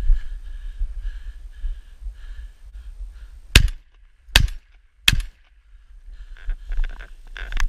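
Three shotgun shots in quick succession, roughly three-quarters of a second apart, with wind buffeting the microphone.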